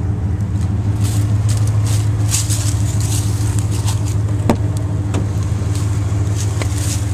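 Steady low hum of an idling vehicle engine. About four and a half seconds in comes a single sharp click, the truck's door latch opening.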